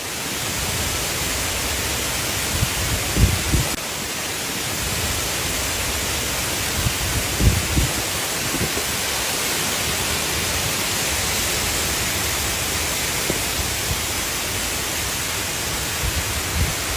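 Storm noise: a steady, loud hiss of heavy rain and wind, with a few brief low thumps of gusts buffeting the microphone.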